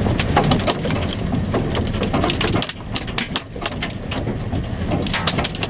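Scattered sharp taps of precipitation striking the storm-chase vehicle, thicker near the end, over a steady low rumble. The taps ease off briefly a little before halfway.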